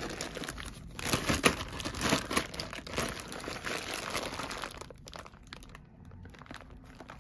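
Packaging crinkling and rustling as a box of jewelry is handled and opened up, with many small crackles; the handling is busy for about five seconds, then softer and sparser.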